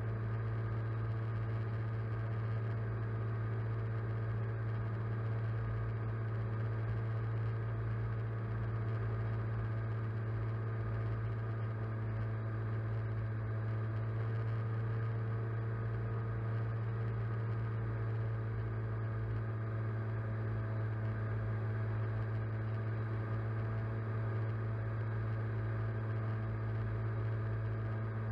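Drone's electric motors and propellers humming steadily at one pitch, a strong low drone with fainter higher overtones, as picked up by the camera on board.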